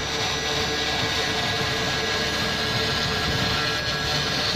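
CNC router spindle running at speed as its thin bit mills a block of polystyrene foam. It makes a steady, even machine noise with a constant hum-like tone and no breaks.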